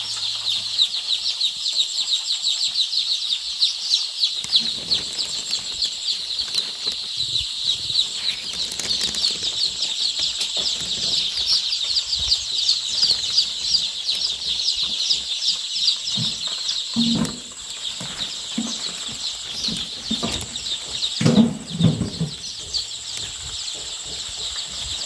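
A large flock of day-old layer chicks peeping together in a brooding room: a dense, unbroken chorus of high, rapid cheeps. A few brief low sounds cut in about two-thirds of the way through.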